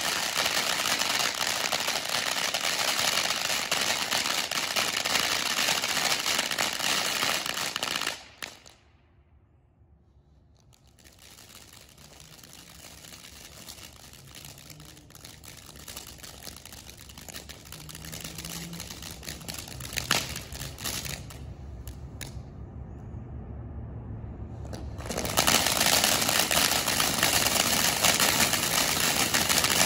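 Toon Town 500 g firework fountain by Smoking Alien spraying sparks with a loud steady hiss. A third of the way through it dies away to near silence for a couple of seconds, then burns more quietly with a low rumble and a single sharp crack, before the loud hissing spray starts again near the end.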